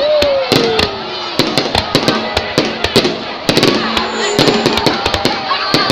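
Fireworks going off: many sharp bangs and crackles at irregular, uneven intervals, with no pause.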